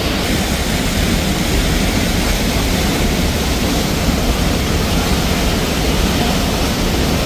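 Sheep River Falls: a waterfall's steady, loud rush of falling water, heard up close.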